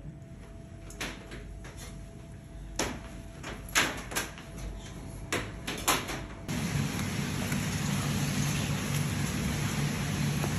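Scattered sharp knocks and clicks as a heap of red salmon roe is scooped and turned in a plastic tray. About six seconds in, the sound changes abruptly to a steady rushing noise with a low hum.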